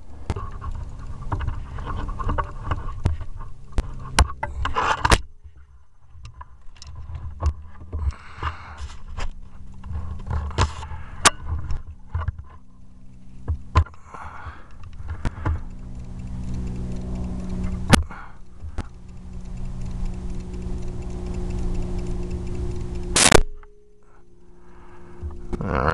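Handling noise from an air rifle and its clip-on scope camera: scattered clicks, knocks and rubbing as the rifle is swung onto the target. A steady hum builds in the second half and cuts off abruptly after a loud rattle near the end.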